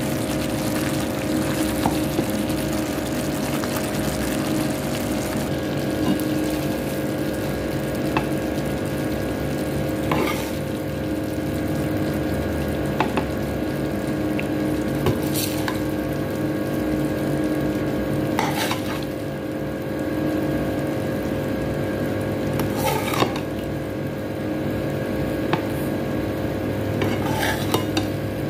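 Creamy chicken sauce sizzling in a steel pot while a wooden spoon stirs it, over a steady hum. Later a metal spoon knocks sharply against the pot and a ceramic serving bowl about five times as the chicken is dished up.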